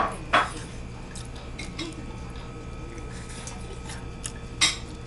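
Eating sounds from a person eating fried chicken with his hands: two sharp wet smacks at the start, half a second apart, and another near the end, with faint clicks between, over a steady low hum.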